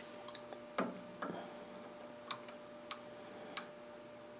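Light clicks and knocks from hands working tooling at a metal lathe's carriage: two soft knocks about a second in, then three sharp ticks a little over half a second apart, over a faint steady hum.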